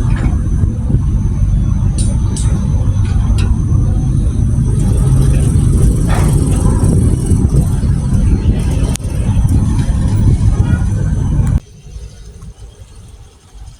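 A loud, steady low rumble that cuts off abruptly about eleven and a half seconds in, leaving a much quieter background.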